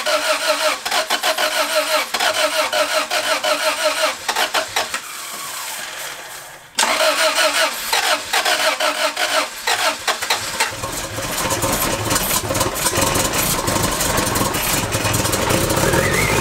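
Starter cranking the 1993 Civic hatchback's B18B1 1.8-litre four-cylinder engine, with a short break about five seconds in. The cranking goes on until the engine catches about ten seconds in and is kept running on heavy throttle, rising in revs near the end. This is its first catch after moisture was dried out of the distributor, and the owner figures the cylinders are loaded with unburnt fuel from the many start attempts.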